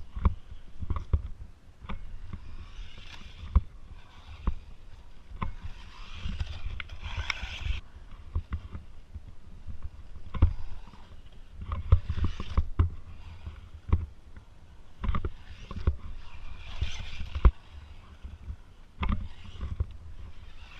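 Small electric RC truck (Foxx S911) driving over a dirt track: irregular knocks and thumps as it bounces and lands, with recurring bursts of gritty scraping from the tyres on dirt.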